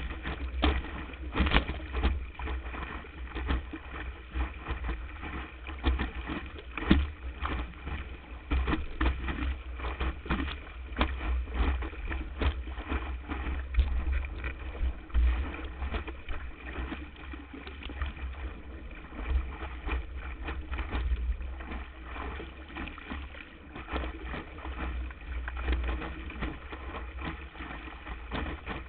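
Windsurf board sailing through chop, heard from a GoPro Hero on the board's nose: a constant rush of water and spray, with frequent irregular splashes and slaps of water against the camera, over a heavy low rumble of buffeting.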